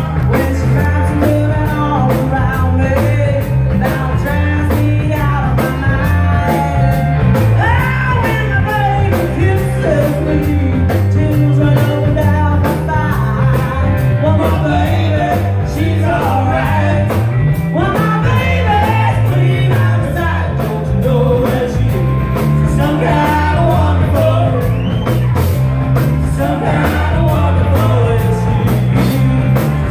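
Live rock band playing: a woman singing lead over electric guitar and drums with a steady beat, heard through the room's PA.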